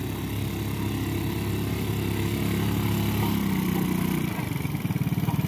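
Small motorcycle engine running under load as the bike, weighed down with baskets of fish, is worked slowly along a muddy track. Its note changes about three seconds in and becomes an uneven putter near the end.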